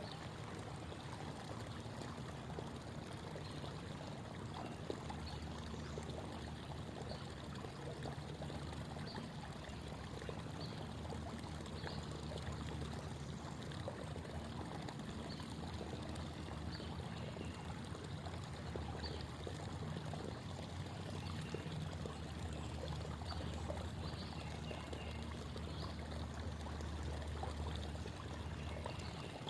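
Creek water babbling and trickling: a steady flow of running water with an even, low rush underneath.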